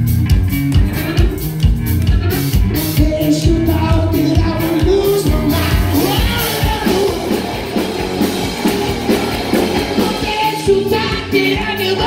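Live rock band playing: electric guitar, bass guitar and drum kit, with lead vocals coming in around the middle.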